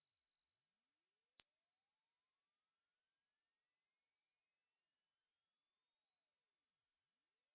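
A pure sine test tone at a very high pitch, gliding steadily and slowly upward at an even level: a frequency sweep used as a hearing test for dogs.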